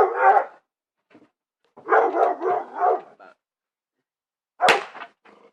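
A dog barking in bursts: a bark at the start, a quick run of about four barks around two seconds in, then a single sharp crack near the end.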